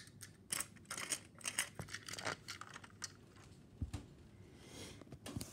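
Handling noise from plastic toy train cars: a run of light clicks and rustles, then a dull thump about four seconds in.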